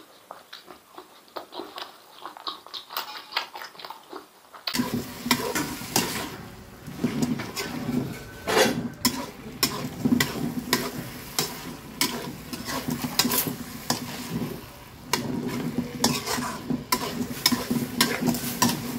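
Faint chewing for the first few seconds. Then, abruptly, beef and chicken intestines sizzle in a wok of chili paste, while a spatula scrapes and knocks against the pan as it stirs, many times over.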